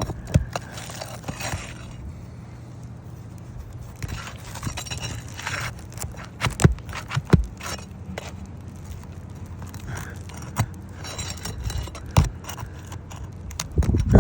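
Scraping and irregular sharp clicks and knocks as a tool works under brittle, delaminating asphalt shingles to unseal and lift one.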